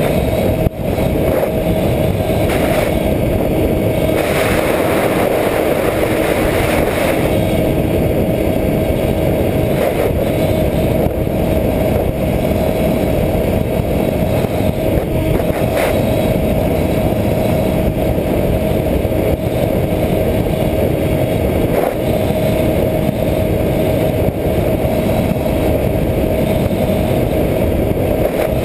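Electric motor and propeller of a Skywalker 1900 RC plane running at steady throttle in flight, a constant whine over heavy wind rush on the onboard camera's microphone.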